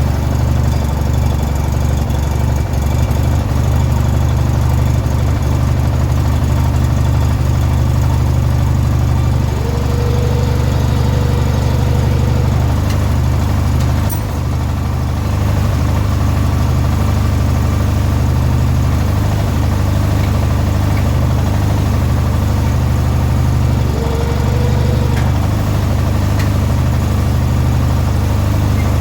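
Briggs & Stratton 18 hp twin-cylinder engine in a modified Craftsman riding mower running steadily at idle. A short faint whine comes in twice, about ten seconds in and again near twenty-four seconds.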